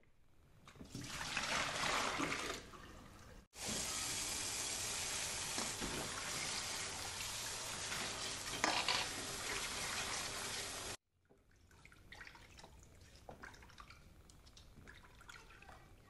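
Water running and splashing into a kitchen sink basin as leafy greens are rinsed: a short rush of water, then a steady stream for about seven seconds that stops abruptly. Quieter drips and small splashes follow as the wet greens are handled.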